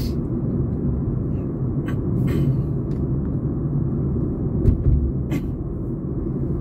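Car driving along a road, heard from inside the cabin: a steady low road and engine rumble, with a few short clicks and a brief low thump about two-thirds of the way through.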